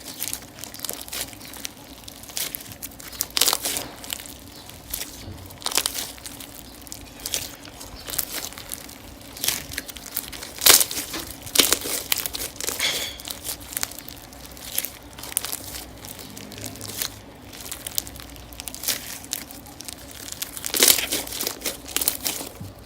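Slime being squished and stretched by hand, giving irregular crinkling and crackling with sharp pops every second or so.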